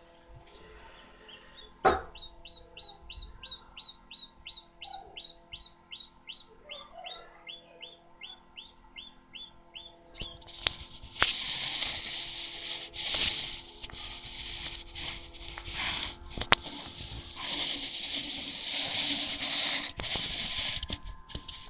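Chicken chick peeping: a rapid run of short, high, downward-sliding peeps, about three a second, after a sharp click. About ten seconds in, the peeps give way to a louder rustling hiss that lasts to the end.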